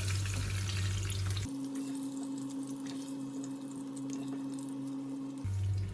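Hot olive oil sizzling faintly in a frying pan, as the shallow-fried chicken is taken out. From about a second and a half in until near the end, a steady low hum sits under the sizzle.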